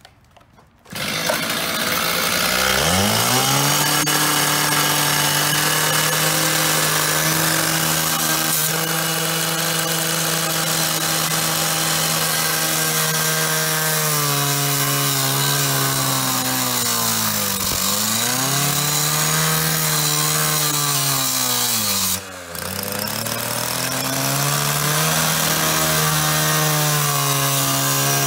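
Power cutting tool with a spinning motor, a grinder or power saw, cutting into the metal face of a payphone. It spins up about a second in and runs at a steady pitch over a hissing cutting noise. Its pitch sags twice as it bogs down in the cut, almost stopping partway through before it spins back up.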